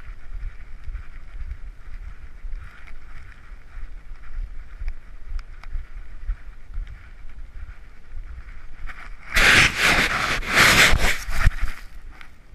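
Dog-worn action camera knocking and rubbing with the dog's movement over a low wind-like rumble. About nine seconds in comes a loud, rough scraping that lasts about two and a half seconds: the camera grinding against sand as the dog rolls onto its back.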